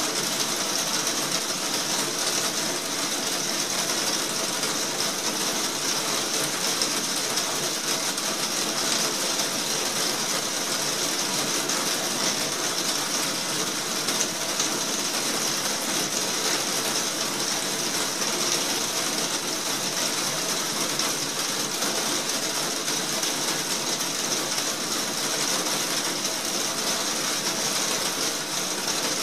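Heavy rain falling on a roof, heard from inside the room beneath it: a dense, even patter of countless drops with no let-up.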